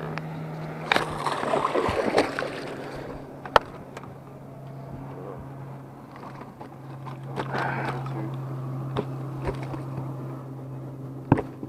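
Electric trolling motor on a bass boat humming steadily, dropping slightly in pitch about a second in, with a few sharp knocks over it.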